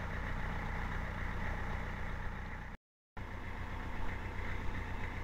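Narrowboat's diesel engine running steadily at low revs, an even low chug. It cuts out completely for a moment about three seconds in.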